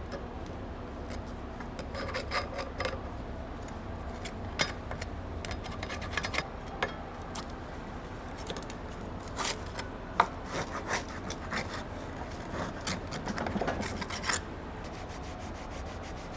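Scraping and rubbing on the air cart meter housing's end cap as the old silicone and side seal are scraped off and the surface cleaned. The strokes come in irregular bouts and stop about two seconds before the end.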